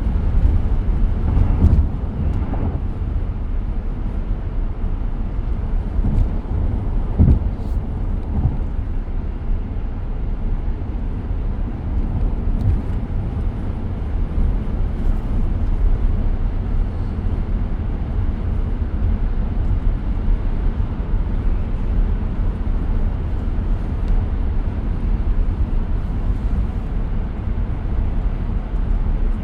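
Steady low road and tyre noise inside the cabin of a moving 2023 Tesla Model X, an electric car, with a few brief louder moments in the first eight seconds.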